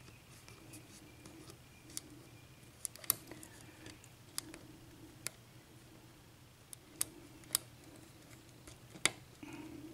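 About nine small, sharp clicks at irregular intervals: a lock pick working the pin stacks in the keyway of a Russwin six-pin cylinder lock, single-pin picking under light tension.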